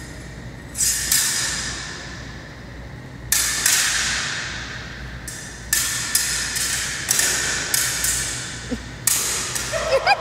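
Steel sabre blades clashing during a sparring bout, about a dozen sharp metallic strikes in quick clusters, each ringing out and fading with echo.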